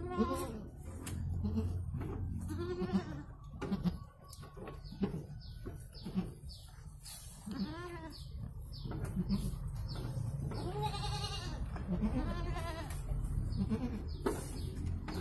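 Goats bleating, a doe with her newborn kids: a string of short, low calls with a longer, higher bleat about eleven seconds in, over a steady low hum.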